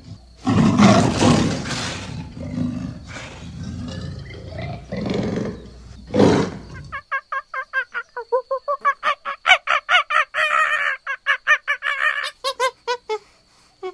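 A large animal roaring in loud, ragged bouts for the first half. It cuts off suddenly and gives way to a different animal's rapid run of short, high-pitched calls, several a second, rising and falling in pitch.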